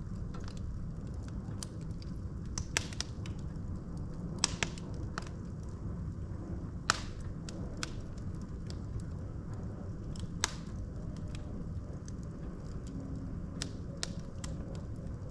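Logs burning in a fireplace: a steady low rumble of flame with scattered sharp crackles and pops, the loudest about three, four and a half, seven and ten and a half seconds in.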